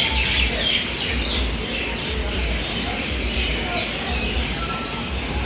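Small birds chirping again and again, quick high chirps, over a steady low rumble and faint voices.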